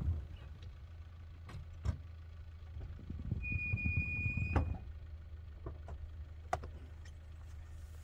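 SsangYong Korando Sports pickup's diesel engine idling with a low hum, with a few sharp clicks from the cab and a steady high electronic beep lasting about a second in the middle. A door click comes just as the beep stops, and the hum is quieter after that.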